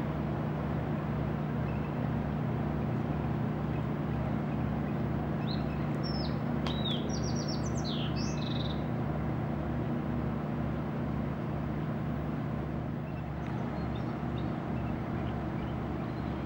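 Boat engine idling: a steady low hum with a regular throb. A bird calls a quick series of high chirps starting about five and a half seconds in, lasting a few seconds.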